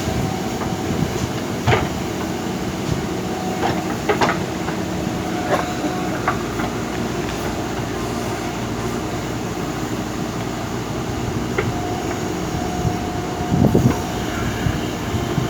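JCB backhoe loader's diesel engine running steadily, with sharp clanks every few seconds and a heavier thump near the end.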